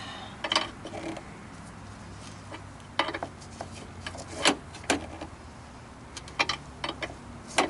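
Scattered sharp metallic clinks, about half a dozen at irregular intervals, as a wrench tightens the truck battery's hold-down clamp.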